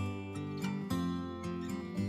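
Background music with acoustic guitar, plucked and strummed notes changing every fraction of a second over a low bass line.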